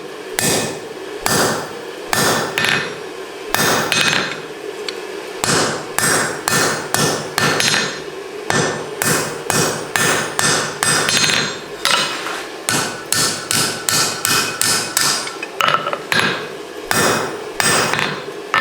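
Hammer blows on hot mild steel over an anvil, in runs of quick strikes with short pauses between them, as the bent jaw end of a pair of bolt tongs is upset and pushed back into shape.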